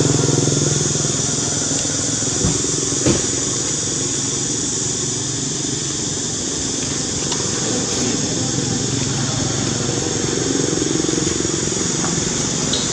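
Steady low motor drone with a high hiss over it, and two short knocks about two and a half and three seconds in.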